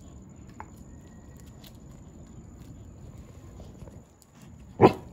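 A dog sniffing and nosing at a hermit crab on concrete, with a few light clicks over a low, even outdoor background and a faint, high, steady tone. One short, louder sound comes near the end.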